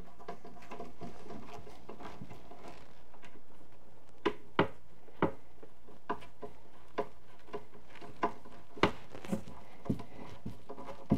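Hand screwdriver turning a metal cam-lock dowel screw into a particleboard panel: faint at first, then from about four seconds in a series of small irregular clicks and taps as the driver tip works in the screw head.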